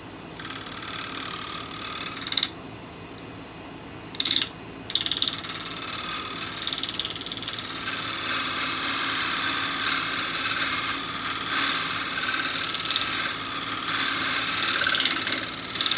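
Bowl gouge taking a shearing cut on a natural-edge pear bowl spinning on a wood lathe: a steady hiss of the tool peeling off shavings. It stops about two seconds in, comes back as two short bursts around four seconds, then runs on steadily.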